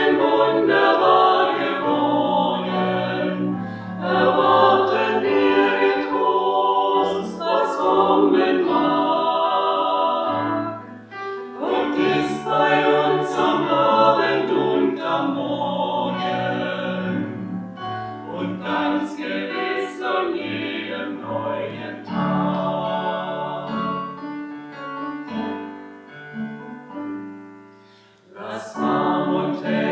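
A small vocal ensemble of women's and men's voices singing a hymn in parts, with electronic keyboard accompaniment. The music dips briefly between phrases near the end, then resumes.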